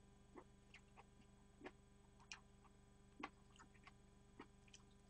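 Near silence with faint, scattered small clicks of someone eating close to a microphone, over a low steady electrical hum.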